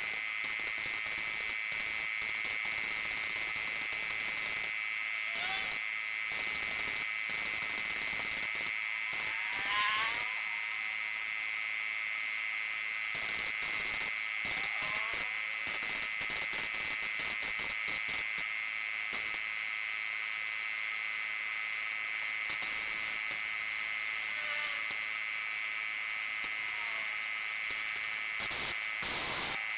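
Small electric paint sprayer running steadily with a high-pitched motor whine while spraying paint.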